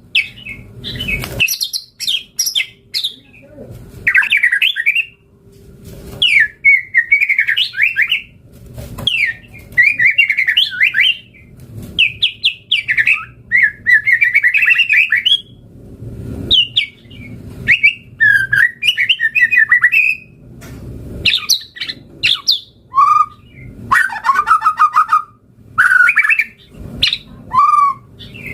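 White-rumped shama (murai batu) singing vigorously: a quick run of varied phrases of whistles, fast trills and harsher squawky notes, each phrase lasting a second or two with short pauses between.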